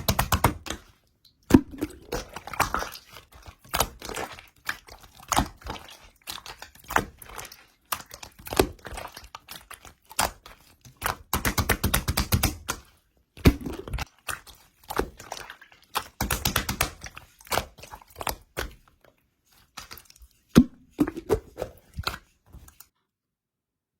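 Slime being squeezed and pressed by hand: bursts of rapid crackling pops with soft thunks in between, coming and going in handfuls with short pauses.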